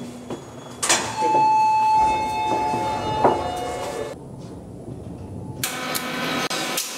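Elevator sounds: a sharp clunk, then a steady electronic beep tone lasting about a second. After a muffled stretch, a harsh buzzing mechanical noise sets in near the end as the elevator malfunctions.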